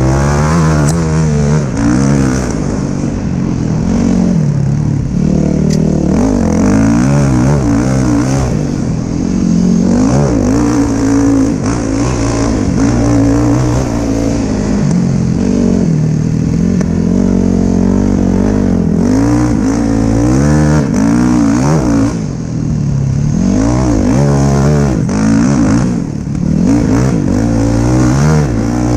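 Dirt bike engine running under constantly changing throttle, its pitch rising and falling over and over as the rider accelerates and eases off, heard from on the bike.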